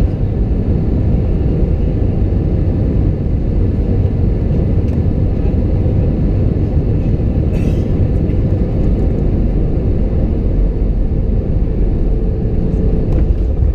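Cabin noise inside an Airbus A320-200 on final approach: a steady low rumble of engines and rushing air, with a faint steady hum above it. A single brief click comes about eight seconds in.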